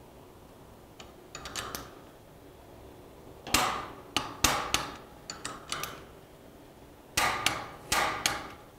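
Torque wrench tightening the rod-bolt nuts on a Cadillac 365 V-8 connecting rod to 55 foot-pounds: three groups of sharp metallic clicks, the loudest in the middle, as the wrench ratchets and clicks over at its setting.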